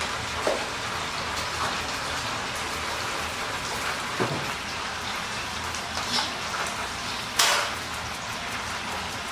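Steady crackling sizzle of karaage frying in hot oil in a deep fryer. A few light clicks of plastic containers being handled are mixed in, the sharpest about seven seconds in.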